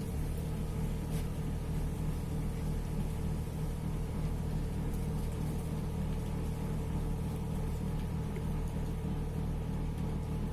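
Car engine idling steadily with an even hum.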